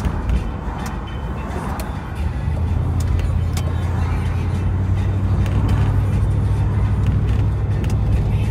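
Road noise inside a moving car: a low engine and tyre rumble with a steady low hum that grows a little louder about two seconds in.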